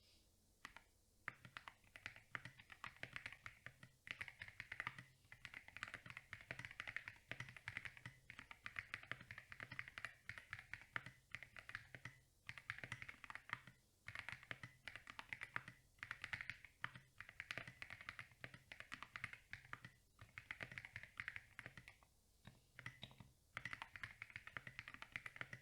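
Typing on a Tofu60 custom mechanical keyboard with Akko CS Jelly Black linear switches, SA-profile keycaps, a PC plate and PE and PCB foam. The keystrokes come in a fast, continuous patter, with short pauses every couple of seconds.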